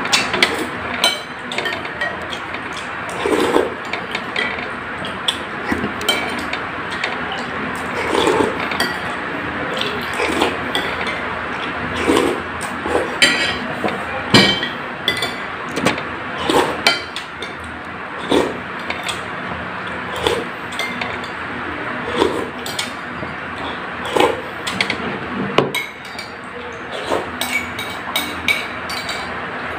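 Metal spoon clinking and scraping against a white bowl of noodle soup, with irregular sharp clinks every second or two and softer eating sounds between them, over a steady background hiss. Near the end the bowl is tilted up and scraped for the last of the soup.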